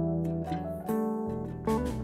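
Background music of plucked guitar, with notes that ring on and new notes coming in a few times.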